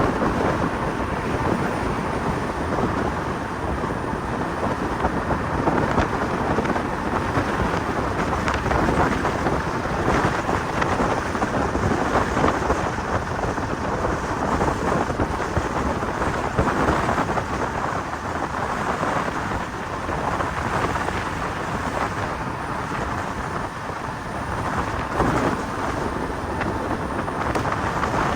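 Wind buffeting a microphone, a steady heavy rumbling rush with a faint steady high tone underneath.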